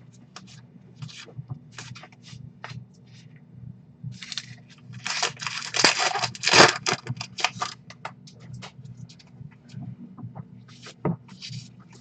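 Baseball cards being handled: short scrapes and rustles of cards slid against each other, with a dense crinkly rip about five seconds in that fits a card pack wrapper being torn open. A steady low hum runs underneath.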